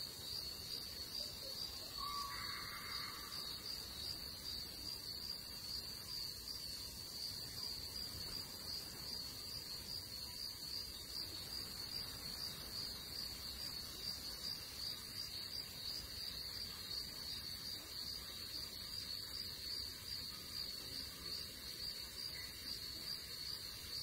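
Insects trilling in a steady, high-pitched chorus that does not let up.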